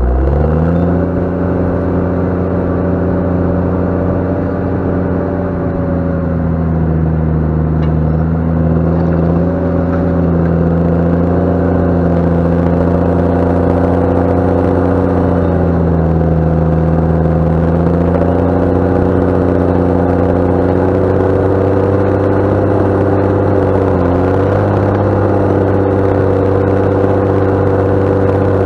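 JCB Fastrac 7270 tractor's diesel engine working under load while ploughing. It revs up right at the start, then runs steadily, with a few brief dips in engine speed as the load changes.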